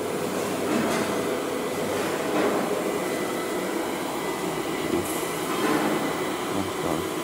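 AccTek AKM1325C CNC router running as its spindle head traverses along the automatic tool-change rack: a steady mechanical whir from the servo-driven axes, with faint steady tones.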